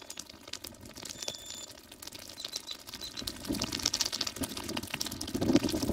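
Horse ridden at a walk along a dirt trail: faint hoof falls and tack creaks, heard from the saddle. Wind buffets the microphone, growing louder in the second half, and a short high whistle sounds about a second in.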